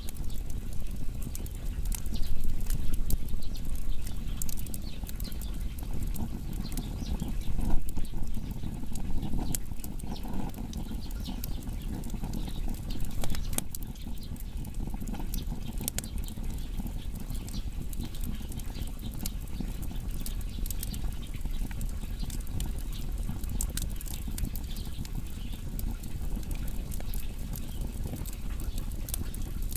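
Wood fire burning: firewood crackling with frequent sharp pops over a steady low rumble of the flames. The crackling is busier and louder in the first half, then settles.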